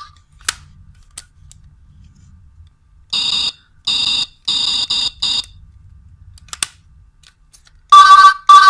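Electronic sound effects from a toy ray gun's speaker: a button click, then four short electronic shot sounds about two a second. Near the end a louder, lower-pitched electronic effect starts up.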